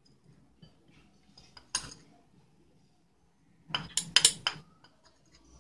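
Steel spoon clinking and scraping against a small plate and a mixing bowl while spice powder is spooned out. There is one clink about two seconds in, then a quick run of clinks near four seconds.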